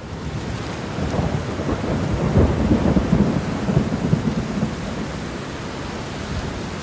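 Thunderstorm: steady rain with a low rolling rumble of thunder that swells over the first second and is loudest between about two and four seconds in.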